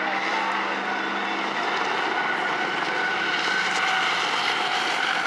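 Engines of several old sedans and a pickup truck running together as they race around a paved oval towing boats, a steady drone.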